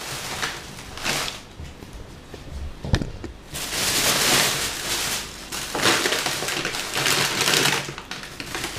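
A plastic shopping bag and plastic food packaging rustling and crinkling as groceries are handled and lifted out, coming in irregular spells, with one sharp click about three seconds in.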